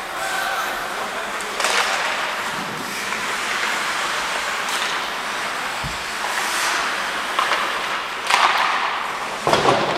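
Ice hockey play: steady scraping and hissing of skate blades on the ice, with a few louder sharp sounds of sticks, puck and skates, one about two seconds in and two near the end.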